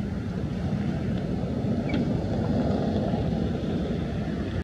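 Wind buffeting the microphone: a steady low rumble with no clear pitch.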